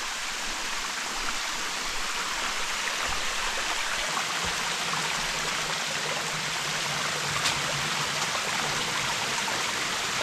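Steady rush of water from a small cascade on a mountain stream.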